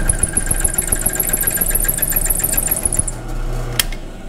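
Drill press running while a twist drill bores into a cast-iron radiator tank. The bit hammers and chatters with a rapid high-pitched squeak as its side flutes rub on a hard spot in the casting. The squeaking stops about three seconds in, leaving the steady hum of the drill press, with one click near the end.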